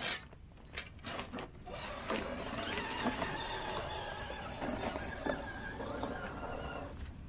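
Electric motor and geared drivetrain of an RC scale crawler whining as it climbs loose rock, with scattered clicks and clatters of stones under the tyres.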